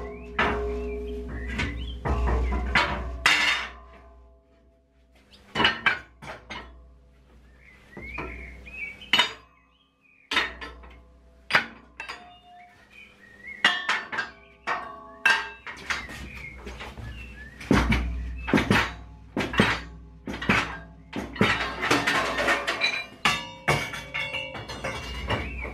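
6mm steel plate and steel bars clanking against a steel frame and clamps as they are handled and set in place: many separate metal knocks, each ringing briefly.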